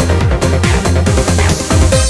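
Electronic dance music with a driving four-on-the-floor kick beat, about four kicks a second.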